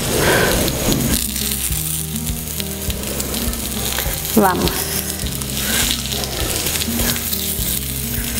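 Slices of zucchini and eggplant sizzling in oil on a hot flat griddle plate, a steady frying hiss.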